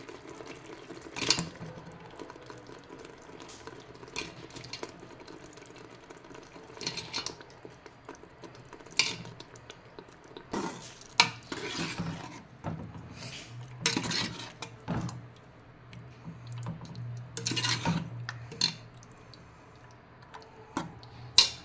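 Steel spoon clinking and scraping against the inside of a metal pressure cooker as pieces of mutton liver, kidney and heart are stirred into a wet green masala paste. The clinks come at irregular moments, with the sharpest one near the end.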